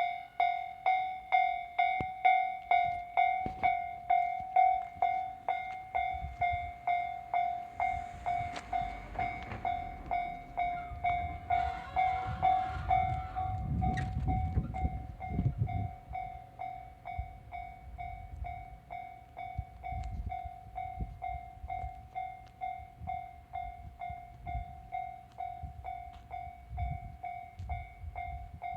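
Japanese level-crossing warning bell starts ringing suddenly: a steady electronic ding-ding tone pulsing about twice a second, signalling that a train is approaching. A low rumble and hiss swell and fade in the middle.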